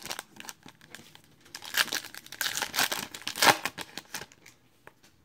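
A trading-card pack wrapper being torn open and crinkled, in a run of crackly rustles that is loudest in the middle.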